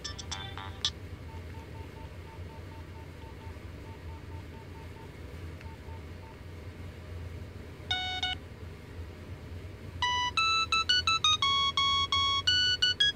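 Nokia mobile phone playing its built-in ringtone previews through its small speaker as the ringtone list is scrolled. A beeping melody stops about a second in, faint quick beeps repeat evenly at about four a second, one short note sounds near eight seconds, and about ten seconds in a louder, bright one-note-at-a-time ringtone tune starts.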